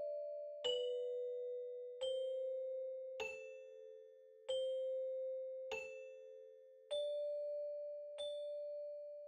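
Slow soundtrack music of single struck, bell-like notes, about one every 1.2 seconds. Each note rings out and fades before the next, like a glockenspiel or chime playing a quiet melody.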